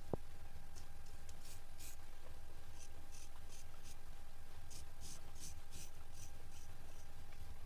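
A straight razor scraping hair off a scalp in short strokes, about three a second, in runs with brief pauses. There is a small knock right at the start.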